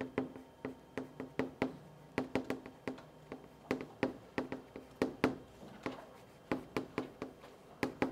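Chalk tapping and clicking on a blackboard as words are written: an uneven run of sharp taps, a few each second, broken by short pauses between strokes.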